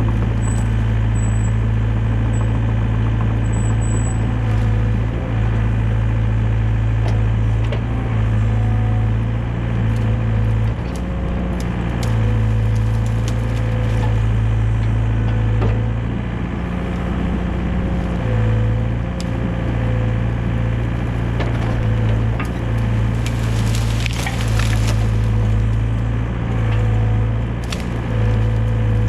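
Excavator's diesel engine running steadily with a faint wavering whine, while branches crack and snap as brush is crushed and piled. A louder burst of cracking and breaking wood comes about three-quarters of the way through.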